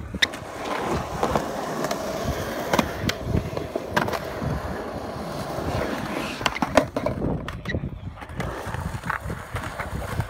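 Skateboard wheels rolling on rough concrete: a continuous rumble broken by a few sharp clacks.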